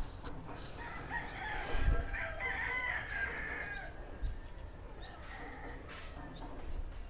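A rooster crowing once, starting about a second in and lasting about two seconds, while a small bird gives short, rising chirps several times.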